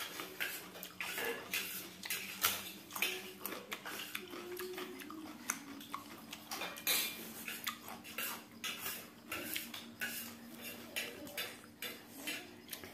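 Spoons scraping and clinking against stainless steel plates as people eat, in many small irregular clinks and scrapes.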